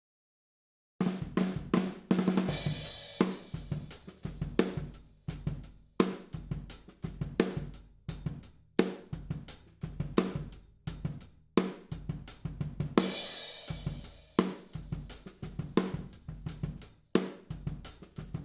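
Recorded acoustic drum kit playing a groove of kick, snare, hi-hat and crash cymbal, heard through a spaced pair of Royer R-122 ribbon overhead microphones. It starts about a second in, with crash cymbal hits at the start and again about two-thirds of the way through.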